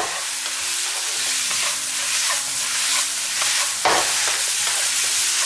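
Eggplant and green peppers sizzling in a nonstick wok over high heat while being stir-fried with a wooden spatula: a steady hiss, with a sharp spatula stroke about four seconds in.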